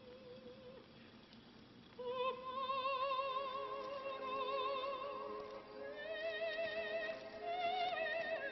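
Operatic singing: a high voice enters about two seconds in, holding long notes with a wide vibrato and stepping higher near the end.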